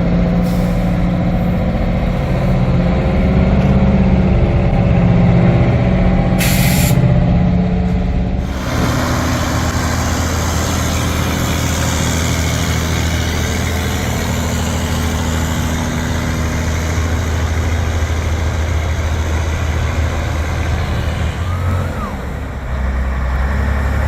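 Diesel truck engines running steadily, with a short air-brake hiss about six and a half seconds in. From about eight and a half seconds a louder, rougher diesel drone with road noise takes over, as a truck pulls past.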